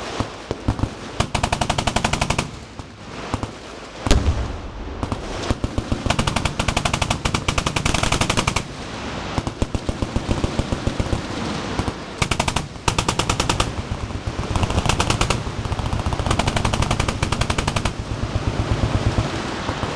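Many machine guns firing at once in overlapping bursts of rapid automatic fire, with brief lulls, and one sharp, louder boom about four seconds in.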